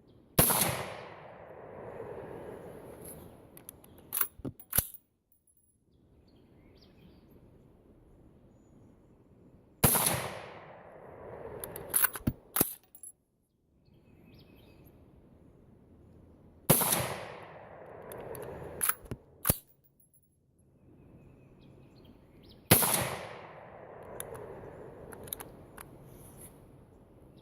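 Four AR-15 rifle shots several seconds apart, fired with light .223 Remington cast-bullet handloads. Each shot echoes and fades, and a second or two later comes a quick run of metallic clicks as the action is worked by hand, because the load fails to cycle the rifle.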